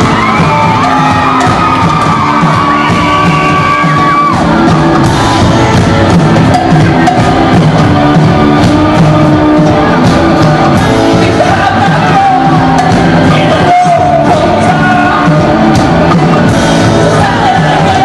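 Rock band playing live, loud and continuous: drum kit, electric bass, electric keyboard and hand drums, with a singing voice over the band.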